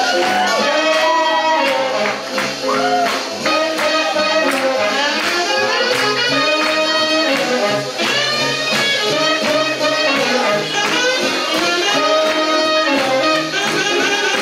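Swing jazz music for Lindy Hop dancing: horns play the melody over a steady swinging beat.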